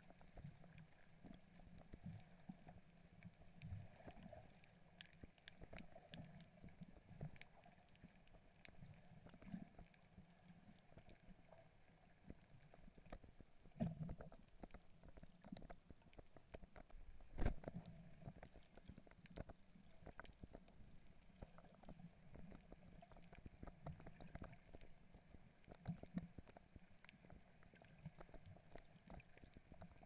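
Faint underwater sound picked up through an action camera's waterproof housing: a low muffled rumble of water movement with many scattered small clicks and knocks, and two louder thumps a little past the middle.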